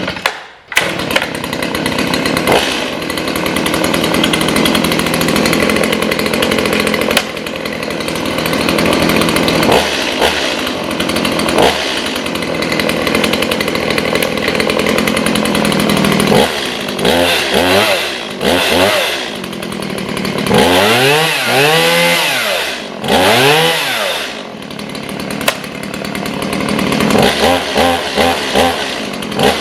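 Stihl MS170 30 cc two-stroke chainsaw, pull-started from the ground, catches within the first second and runs steadily. From about halfway it is revved up and down several times, its pitch rising and falling with each blip of the throttle.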